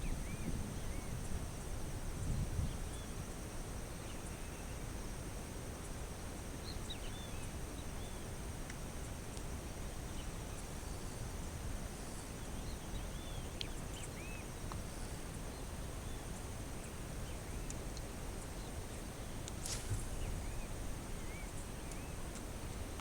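Open-air river ambience: a steady low rumble of wind with scattered short bird chirps and a constant high-pitched insect buzz. A single sharp tick comes near the end.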